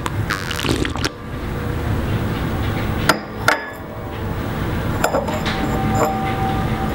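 Porcelain teacup set down onto its saucer: two sharp clinks about half a second apart, then lighter clicks as the cup is nudged, over a low steady rumble.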